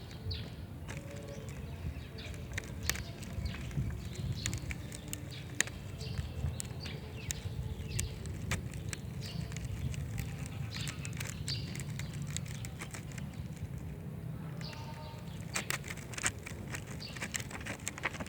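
Homemade slime of glue and mouth-cleaning solution being stirred and worked until it stops sticking, giving irregular sticky clicks and taps over a low handling rumble.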